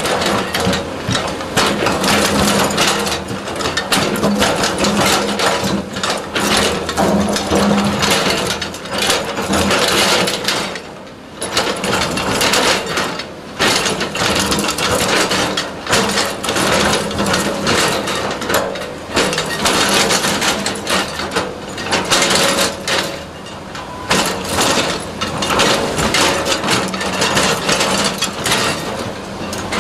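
Caterpillar 320C hydraulic excavator digging into a rocky slope: the toothed bucket scrapes and crunches through broken rock and gravel, with stones clattering, over the steady hum of the running engine.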